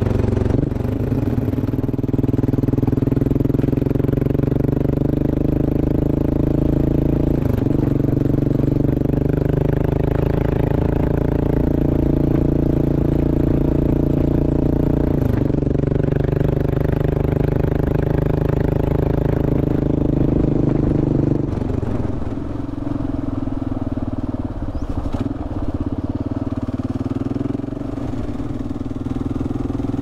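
Kawasaki KLR650's single-cylinder four-stroke engine pulling steadily under way. The note dips briefly twice, then drops and gets quieter about 21 seconds in.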